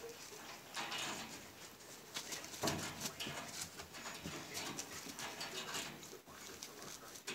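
Siberian husky puppies pawing at a wire-mesh crate while an adult husky noses at them through it: irregular scratching and rattling on the wire, with some dog noises.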